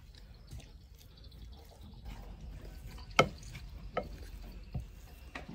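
Wooden spatula mashing cooked sweet potato in a ceramic bowl, with soft squashing and a few sharp knocks of wood against the bowl, the loudest about three seconds in.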